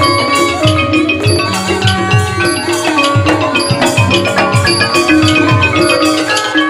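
Thai piphat mai khaeng ensemble playing: ranat xylophones and gong circles run in fast, dense mallet lines over repeated low drum strokes.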